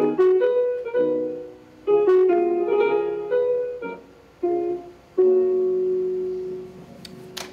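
Piano playing a short composition in phrases of chords and melody, ending on a long held chord that slowly dies away near the end, heard through a video-call connection.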